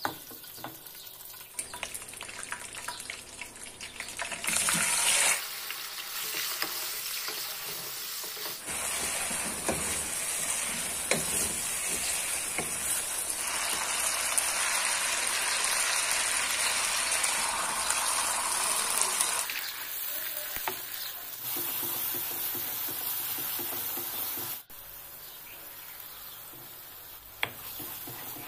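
Food frying in hot oil in a non-stick wok, sizzling while a wooden spoon stirs it. The sizzle changes abruptly several times and is loudest and steadiest for about ten seconds in the middle.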